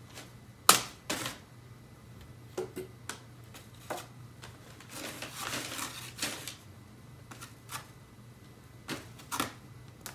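Crumpled brown kraft paper crinkling in sharp, irregular crackles as a cat paws and shifts about on it inside a cardboard box. The loudest crackle comes about half a second in, with a longer run of rustling around the middle and two more crackles near the end.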